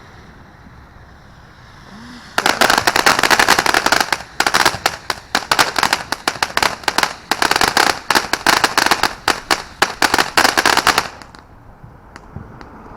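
"Hard Hat" consumer firework going off: a dense run of rapid crackling pops that starts about two and a half seconds in, comes in several waves and stops suddenly about two seconds before the end.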